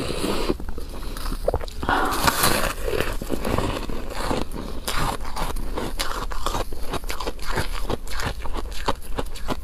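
A block of frozen pink ice being bitten and chewed, heard very close: a dense run of small crunches and cracks, loudest about two seconds in.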